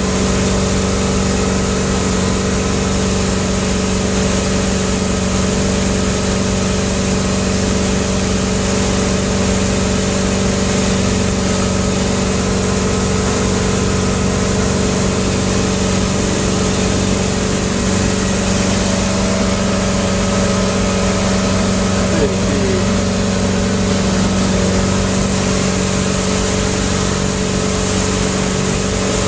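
Motorboat engine running at a steady speed under the load of a towed tube, with a constant rush of wind and churning wake over it.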